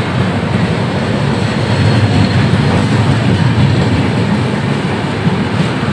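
Express train passing at speed alongside a platform: a loud, steady rushing rumble of coaches and wheels on the track, swelling slightly midway.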